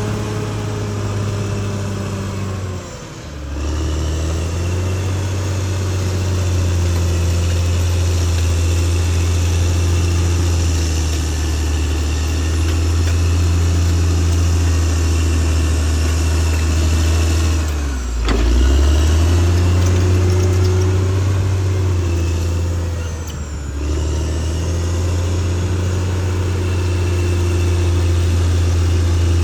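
Caterpillar D6R XL bulldozer's diesel engine running steadily. Its pitch sags briefly three times, a few seconds in and twice in the last half, then climbs back each time.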